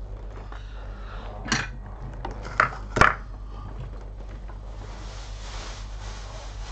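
Small metal hand tools clinking against the workbench, three sharp clinks in quick succession between one and a half and three seconds in, over a steady low hum. A soft hiss follows near the end.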